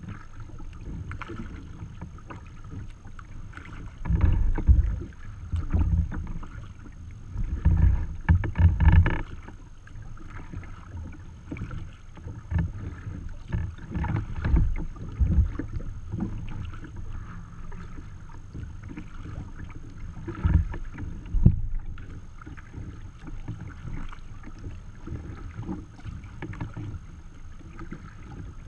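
Water washing and lapping against a sea kayak's hull as it moves through light chop, with irregular low rumbling surges. The heaviest surges come between about four and nine seconds in and twice more around twenty seconds in.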